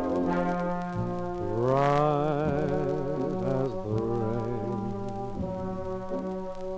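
Instrumental passage from a 1945 dance-orchestra recording: horns play a slow melody with a wide vibrato over held low notes, starting about a second and a half in.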